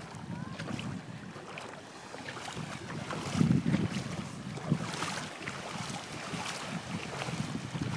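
Beach ambience: wind on the microphone over small waves washing in the shallows.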